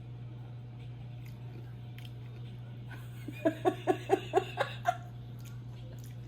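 A person laughing in a quick run of about seven short 'ha' pulses, about halfway through, over a steady low hum.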